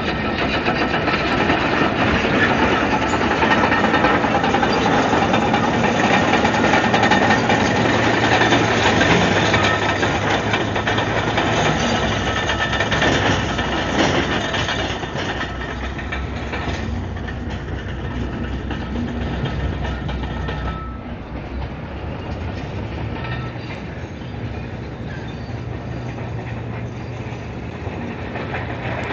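Komatsu D155AX-7 crawler bulldozer working: its diesel engine runs under load while the steel tracks clank and rattle. Louder over the first half, easing off after about fifteen seconds.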